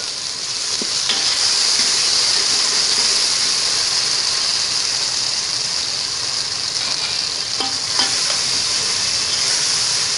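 Chopped tomatoes and a crushed ginger, garlic and green-chilli paste frying in hot ghee in a metal pot: a steady sizzle that swells in the first second or two. A steel ladle stirs them, clinking against the pot a few times, most sharply about eight seconds in.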